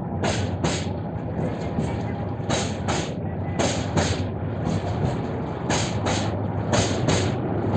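Kalni Express passenger coaches rolling past as the train leaves the station, their wheels clacking over the rail joints in pairs about every second or two, over a steady low hum and rumble.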